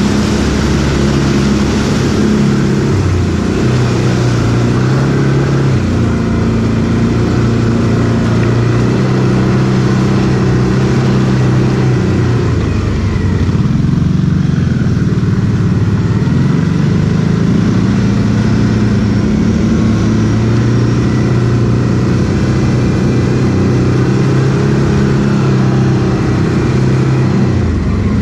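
ATV engine running continuously under way, its pitch rising and falling with the throttle, wavering most about halfway through.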